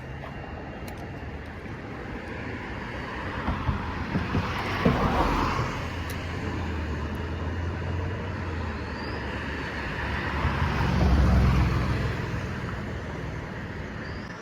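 Road traffic: passing vehicles over a steady background hiss, swelling and fading twice, around five seconds in and again, louder, around eleven seconds in.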